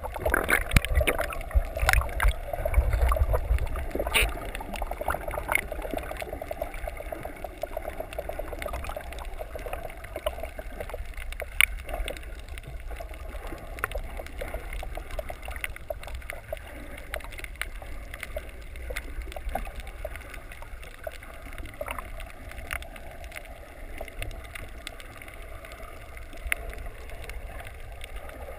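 Underwater sound picked up by an action camera in its housing while a snorkeler swims: a low muffled water rumble and gurgling with scattered sharp clicks, louder for the first several seconds.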